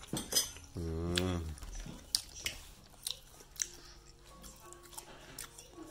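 People eating at a table: small clicks of cutlery against plates and chewing, with a short hummed 'mmm' about a second in.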